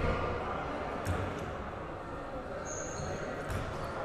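A basketball bouncing a couple of times on the gym floor as the shooter dribbles at the free-throw line, under a background of voices in the gym.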